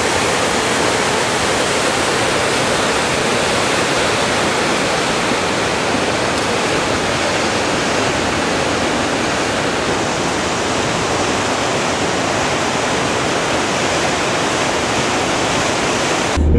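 A swollen mountain river rushing through whitewater rapids: loud, steady rushing water that cuts off suddenly at the very end.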